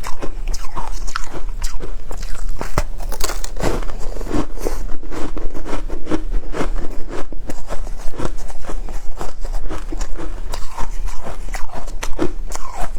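A person biting and chewing shaved ice: a loud, dense, unbroken run of sharp crunches.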